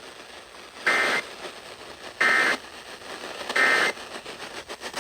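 Emergency Alert System end-of-message data bursts: three short two-pitch digital screeches, about a second and a half apart, over steady radio hiss, signalling the end of the alert.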